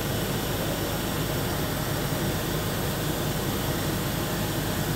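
Steady whooshing machine noise with a low hum underneath, unchanging and with no distinct events.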